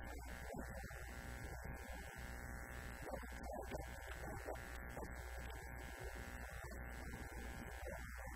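Steady electrical mains hum and buzz, with an indistinct voice underneath.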